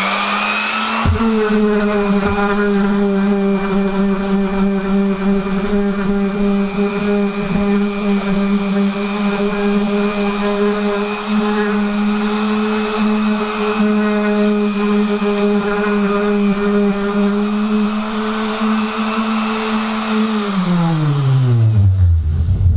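Hofer Workzone random orbital sander running on plywood: a steady motor hum and whine over the rasp of the sanding pad. Near the end it is switched off and winds down, its pitch falling as it slows to a stop.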